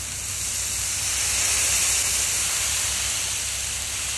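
Water squirted onto a hot Razor griddle top, sizzling and boiling off as steam in a steady hiss.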